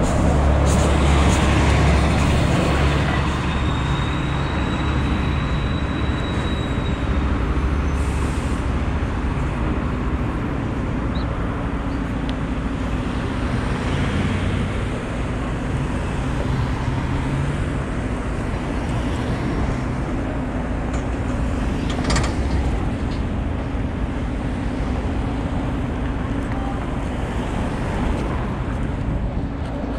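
City street traffic: motor vehicles running by with a steady rumble of engines and tyres, heaviest in the first several seconds. A thin high squeal sounds briefly about three seconds in.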